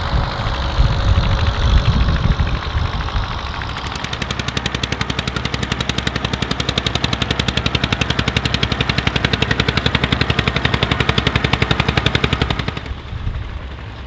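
1950 Allgaier A22 tractor's 22 hp single-cylinder diesel engine pulling a plough. Its exhaust beats in a fast, even chug of about nine pulses a second. A heavier low rumble comes first, the beat stands out clearly from about four seconds in, and it fades near the end.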